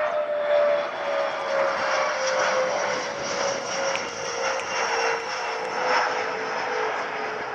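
Airbus A320 jet climbing away overhead on a go-around, its engines at high thrust: a steady rushing jet noise with a clear tone that slowly falls in pitch as the aircraft moves away.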